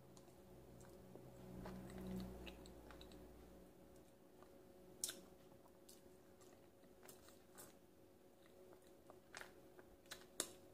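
Faint mouth sounds of someone chewing soft, creamy durian flesh, with a few sharp lip-smack clicks in the second half over a low steady hum.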